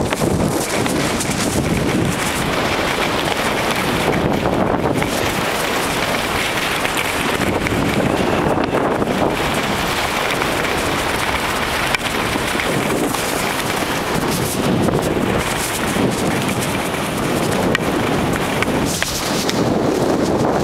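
Wind buffeting the microphone and the hiss of skis sliding over packed snow during a downhill run, a steady rushing noise without a break.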